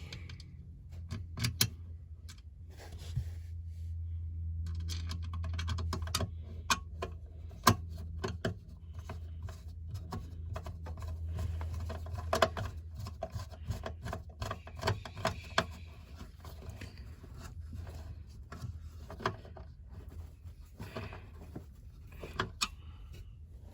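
Small screws being driven by hand with a Phillips screwdriver into a metal panel cover: irregular clicks, scrapes and rattles of metal hardware, over a steady low hum.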